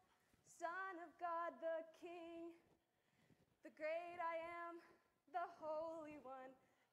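A woman singing lines of a children's worship song unaccompanied, in three short phrases with held notes and brief pauses between.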